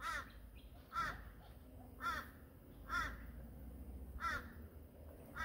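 A crow cawing, short calls repeated about once a second.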